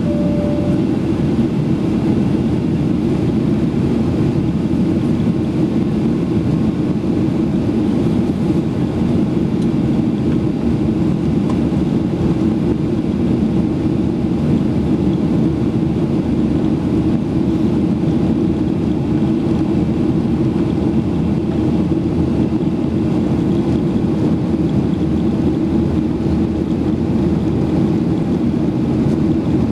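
Steady, deep cabin noise of a Boeing 737 in flight: jet engines and rushing air heard from a window seat, an even rumble with no change.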